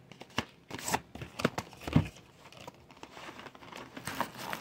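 Cardboard product box being opened by hand: rustling, scraping and crinkling of card and packaging, with several sharp clicks in the first two seconds and a quieter stretch before more handling near the end.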